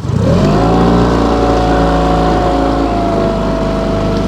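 A boat's outboard motor throttled up from idle: the engine pitch rises over about half a second, then runs steady at speed.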